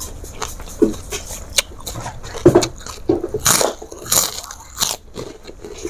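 Close-miked eating: irregular crunching bites and chewing of crispy food, loudest from about halfway through.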